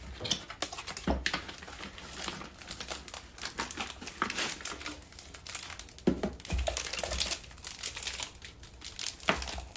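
Packaging crinkling and rustling in irregular bursts as a new coffee grinder is unboxed, with plastic and paper handled, pulled and torn.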